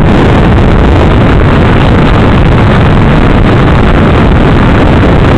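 Loud, steady wind rush buffeting the built-in microphone of a rear-facing camera bike light while the bicycle is being ridden.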